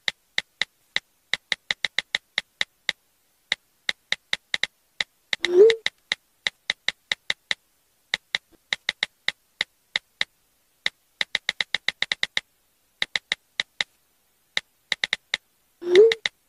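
iPhone on-screen keyboard clicking under fast, uneven typing. Twice, about five seconds in and near the end, a short upward-gliding chat message tone sounds.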